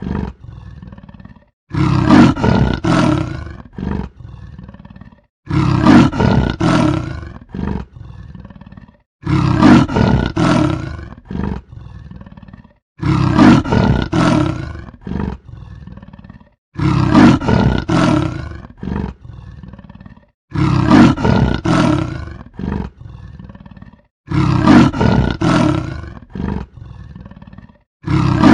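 Leopard roaring in repeated bouts, each a few loud strokes trailing into weaker ones, recurring identically about every four seconds as a loop.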